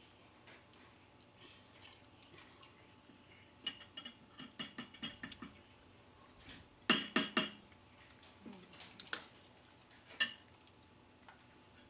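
Metal cutlery clinking and scraping against dishes during a meal: a quick run of small ringing clinks about four seconds in, a louder burst of clinks around seven seconds, and one more clink near the end.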